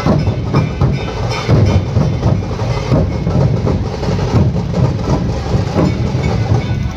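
A large troupe of dhol drums, big barrel drums beaten with sticks, playing a steady, driving rhythm of deep booms and sharp strokes together.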